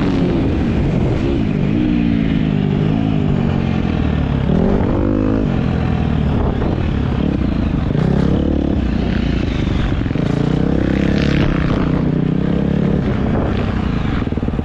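Motocross dirt bike engine under hard acceleration, its pitch repeatedly climbing and dropping back as the rider goes through the gears and rolls off for corners.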